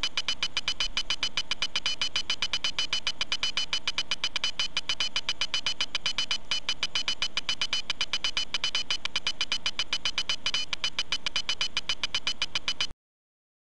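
PowerPoint's 'Hammer' slide-transition sound effect, a metallic hammer clank, retriggered several times a second as the slides auto-advance without a pause. It cuts off abruptly near the end.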